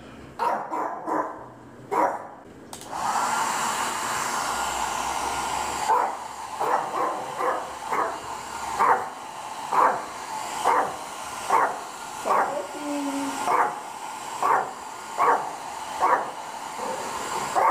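A Yorkshire terrier barks repeatedly, jealous because the other dog is being brushed. About three seconds in a handheld hair dryer starts and runs steadily, and sharp barks keep coming over it about once a second.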